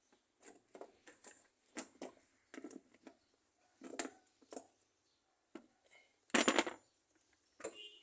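Metal hand tools and engine parts clinking and knocking in irregular handling, with a louder half-second clatter about six and a half seconds in.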